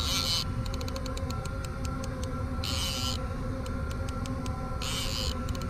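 Fishing reel ratcheting: three short buzzes about two seconds apart, with slower single clicks between them. A steady low hum runs underneath.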